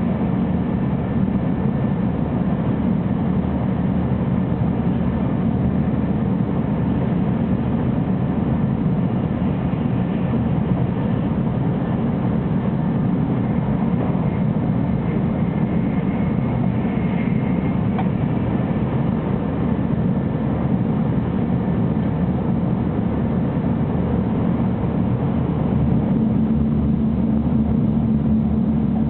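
Running noise heard inside a 300 Series Shinkansen car at high speed: a steady low rumble. A low steady hum joins near the end.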